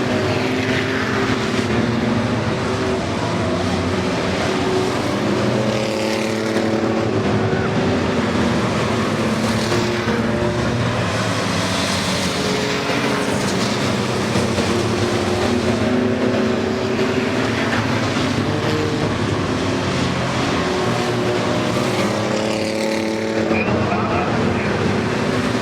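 A field of race trucks running laps on a short oval track. Several engine notes overlap, rising and falling as trucks pass by.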